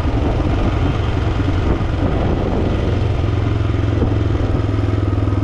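Royal Enfield Himalayan 450 single-cylinder engine running steadily at an even speed.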